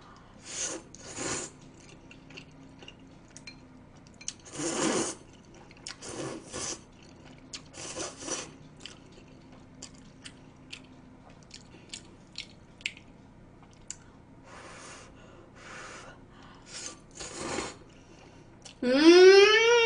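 A person slurping and chewing stir-fried instant noodles: several short slurps with small mouth and chopstick clicks between them. Near the end comes a short rising vocal sound from the eater.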